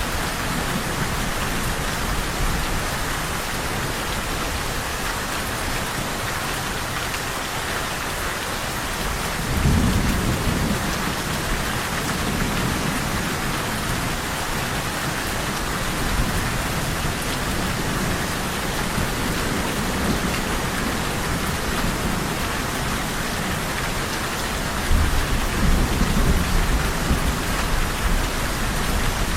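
Steady heavy rain hissing on surfaces, with low rolls of thunder rumbling in about ten seconds in and again near the end.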